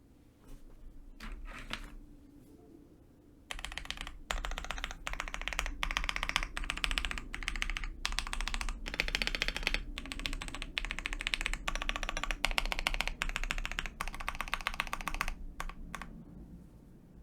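Fast typing on a KBD67 Lite R2 custom mechanical keyboard with lubed Pewter tactile switches (smoothed MX Browns), 57g springs, a polycarbonate plate and PBT keycaps. A few separate key presses come first, then a long, dense run of rapid keystrokes in bursts with short pauses, which stops near the end.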